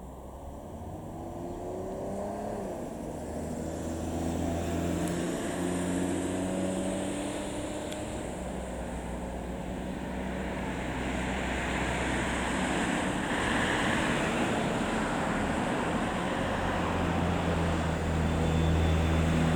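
A train approaching and growing steadily louder: a low hum with a few steady tones, some rising in pitch in the first few seconds, over a swelling rumble.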